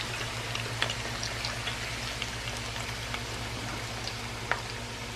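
Egg rolls deep-frying in hot oil: a steady sizzle with many small scattered pops and crackles, over a low steady hum.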